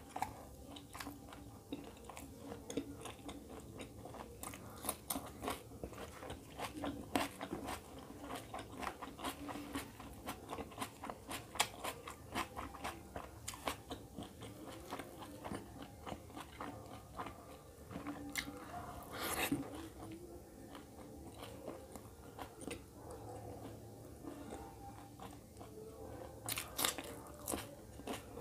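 A man chewing and biting mouthfuls of roti dipped in egg curry, with a steady stream of short wet mouth clicks and crunches. Louder crunches come about two-thirds of the way through and again near the end.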